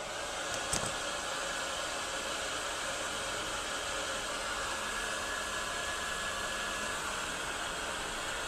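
Heat gun switched on and blowing with a steady rushing hiss, as when shrinking heat-shrink tubing over wires, with a light click about a second in.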